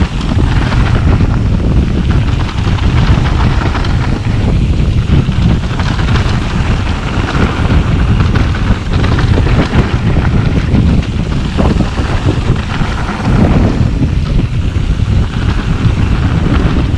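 Wind buffeting the camera microphone over a steady low rumble of mountain bike tyres rolling down a rough dirt trail, with occasional knocks and rattles from the bike over bumps.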